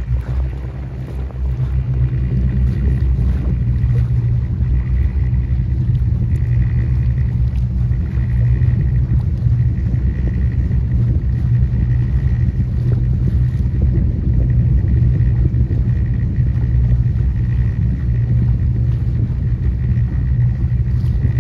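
Motorboat engine running steadily with a low drone, growing louder about two seconds in and then holding.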